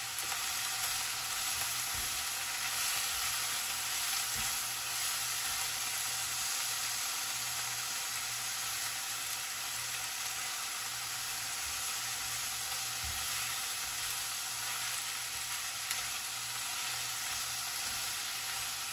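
Taro leaves and tomatoes sizzling steadily as they fry in a stainless steel pan, stirred with a spatula.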